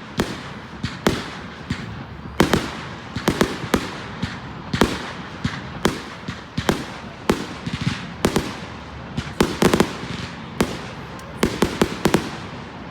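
Fireworks going off: an irregular string of sharp bangs, about two a second, over a continuous background of further bursts, with a quick cluster of bangs near the end.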